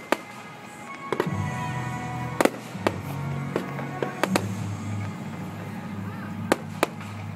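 Fireworks display: aerial shells bursting with sharp bangs at irregular intervals, about eight in all, the loudest two near the start and about two and a half seconds in. Music plays underneath.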